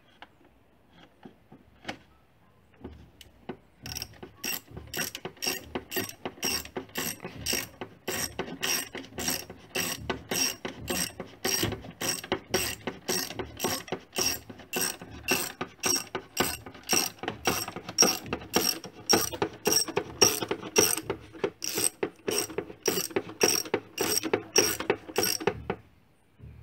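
Socket ratchet with an extension clicking steadily, about two clicks a second, as it turns a spark plug in its well under the engine cover. A few scattered clicks come first, and the steady clicking starts about four seconds in.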